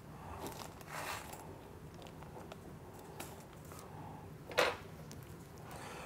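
A hand crimping tool being handled while a contact is loaded into it: faint soft rustles and knocks, then one sharp click about four and a half seconds in.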